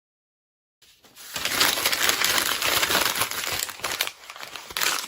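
Paper being crumpled into a ball: a dense run of crackling starting about a second in, easing off around four seconds in, then a few last louder crinkles near the end.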